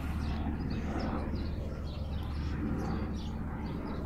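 A steady low machine hum under a faint outdoor background.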